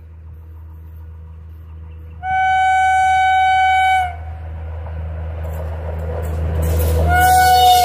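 A WAP-5 electric locomotive sounds its horn as it approaches: one steady blast about two seconds long, then a second blast near the end that dips slightly in pitch. Between and under the blasts the rumble of the oncoming train grows louder.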